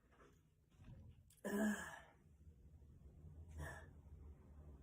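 A person's breathy sigh about a second and a half in, then a fainter short breath near the end.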